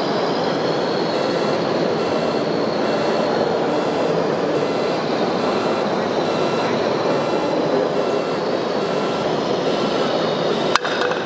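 Steady background noise of a busy exhibition hall, with one sharp knock near the end.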